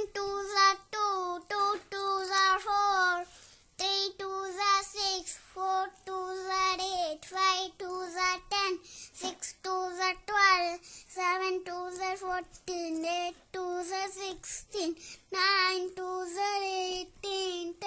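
A child's high voice singing the two times table in a sing-song chant, one short phrase per line with brief breaks between.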